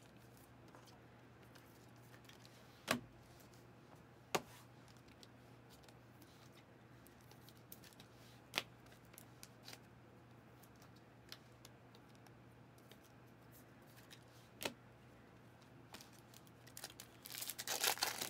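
Trading cards being handled, with a few isolated sharp clicks. Near the end, the foil wrapper of a football card pack is torn open, with a burst of crinkling.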